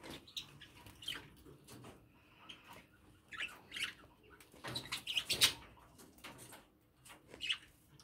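Budgerigar cracking and husking seed in a metal bowl: irregular small clicks and crunches. Short budgie chirps come from the aviary, and there is a louder clatter a little past five seconds in.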